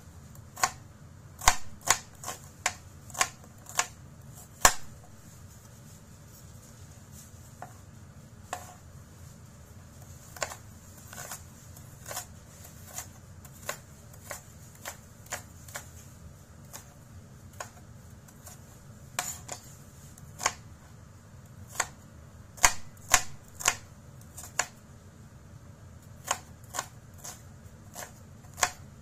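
Chef's knife chopping a red onion on a cutting board: irregular taps of the blade against the board. The taps come loudest in quick clusters in the first few seconds and again about two-thirds of the way through, with softer taps between.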